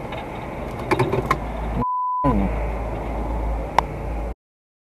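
Dashcam in-car sound with a voice, cut about two seconds in by a short steady censor beep that covers a word. The audio cuts off near the end.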